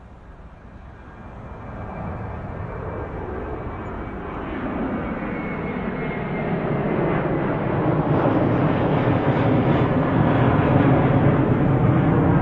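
Airliner engine noise growing steadily louder, a dense rushing sound that swells across the whole stretch, with a faint high whine above it in the first half.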